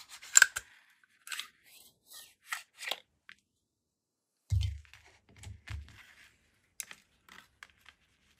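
Springfield Echelon 9 mm pistol being field-stripped by hand: a quick series of sharp metallic clicks and clacks as the slide is worked and taken off the frame. About halfway through come a few dull thumps, then lighter clicks near the end.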